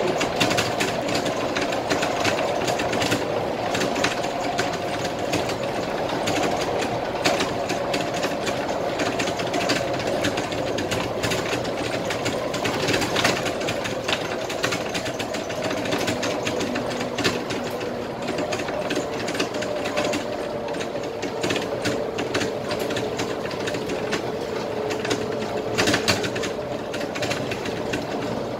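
Interior noise from the cab of a Scania K320IA bus on the move: a steady drone of the bus running, with continual fast rattling and clicking, and a faint whine that drops in pitch about two-thirds of the way through.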